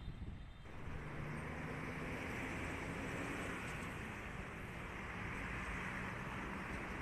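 Steady hum of road traffic, a continuous wash of passing vehicles with a faint engine drone beneath it, growing a little louder under a second in.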